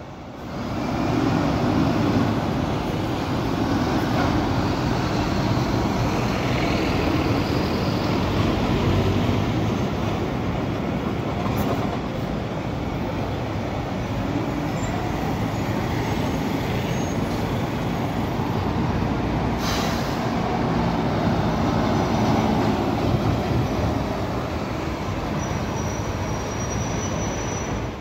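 City street traffic dominated by buses running and passing, a steady dense rumble. Two short sharp clicks come partway through, and a brief high squeal sounds near the end.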